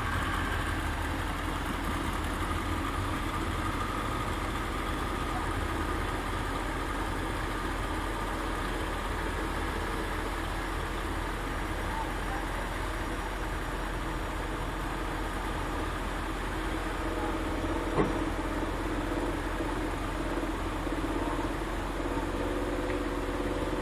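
A heavy engine idling steadily, with one sharp click about eighteen seconds in.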